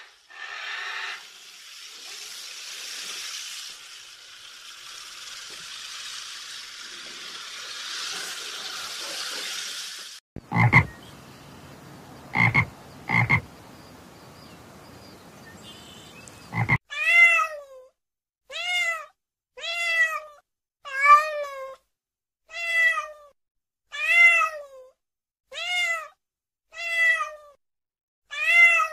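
A steady hissing noise for about ten seconds, then a frog croaking four times, sharp and short. It is followed by a kitten meowing over and over, about once every second and a half, each meow falling in pitch at its end.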